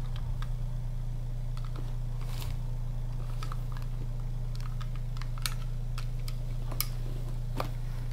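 Scattered light clicks and taps of clear plastic Stoggles safety glasses being handled and folded along with a cloth pouch, over a steady low hum.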